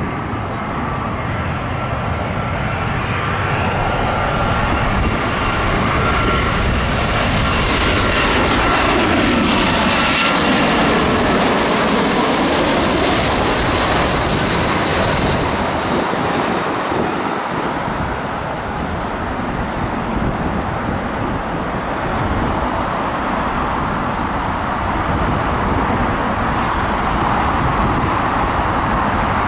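Jet airliner passing low overhead on final approach to land, its engines whining. The sound swells to a peak about ten seconds in, the high whine drops in pitch as the aircraft goes past, and the engine noise then eases off.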